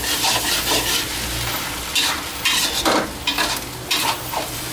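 Glass noodles, cabbage and egg stir-frying in a hot wok: steady sizzling, with a metal spatula scraping and tossing against the pan and several sharper scrapes in the second half.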